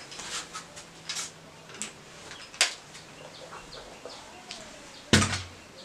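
Scattered clicks and knocks, a sharp one about two and a half seconds in and a louder bump near the end, with faint bird calls in the background.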